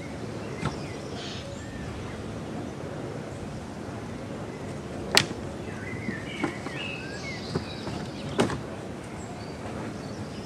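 Old wooden shutters being moved and set down, giving a handful of sharp wooden knocks, the loudest about halfway through, over a steady background hiss. A bird chirps briefly after the loudest knock.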